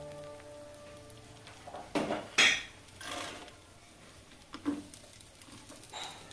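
A few sharp clinks and knocks of a bowl and kitchen utensils as fried onions are scattered over rice in an aluminium pot. The two loudest come about two seconds in, half a second apart, and fainter taps follow.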